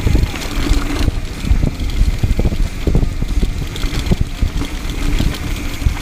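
Mountain bike ridden fast down a rough dirt trail: tyres rolling over dirt and rocks, with frequent short knocks and rattles from the bike over the bumps and a dense low rumble throughout.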